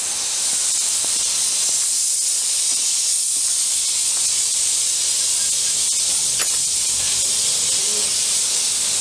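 Small narrow-gauge 0-4-0 steam locomotive, a replica of a Lewin engine, hissing steam steadily as it moves off.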